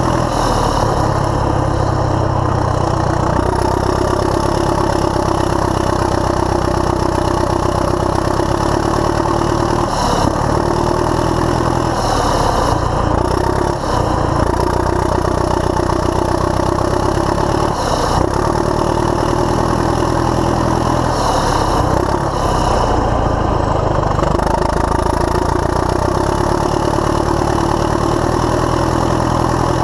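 Caterpillar D7E bulldozer's diesel engine running under load while pushing dirt, heard from the operator's seat. The engine note shifts several times as the load changes.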